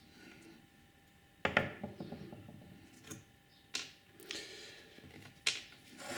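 A handful of sharp clicks and knocks, spaced a second or so apart, as small metal parts of a chip guard are handled and fitted together at the workbench.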